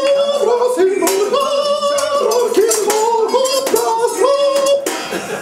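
High-pitched singing of a quick tune in short notes, each scooping up into its pitch.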